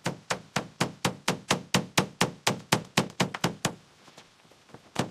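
Rapid, even hammer blows on wood, about four a second, stopping briefly after some fifteen strikes; two more blows come near the end.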